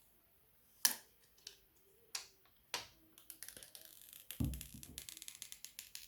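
Handling noise: four separate sharp clicks about half a second apart, then a quick run of small clicks and rustle with a low bump about four and a half seconds in.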